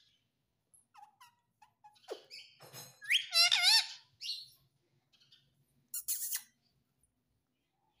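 Indian ringneck parakeet making squeaky chirps and chatter close to the microphone, with a loud run of quick wavering notes around the middle. A short scratchy noise comes about six seconds in.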